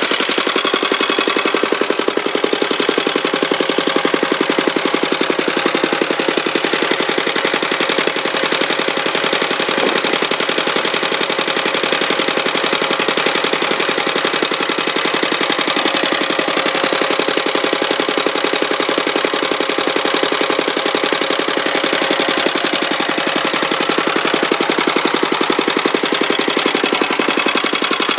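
Petter A1 single-cylinder air-cooled stationary engine running steadily, with a rapid, even firing beat.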